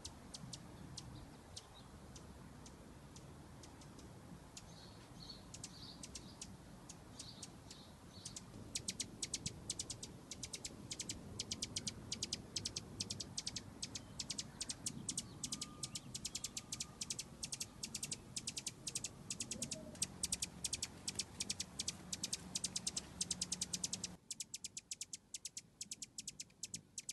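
Hummingbird chipping: a long run of short, sharp, high chip notes, sparse at first and coming in quick runs of several a second from about eight seconds in.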